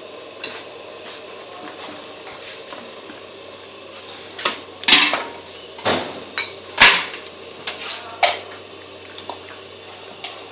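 Utensils clinking and knocking against dishes or a pot: a series of short, sharp clinks, scattered at first and then louder and closer together about four to eight seconds in.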